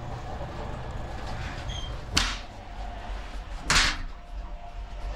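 Steady low rumble inside a moving passenger train, with two short swishes, about two seconds in and nearly four seconds in, the second one louder.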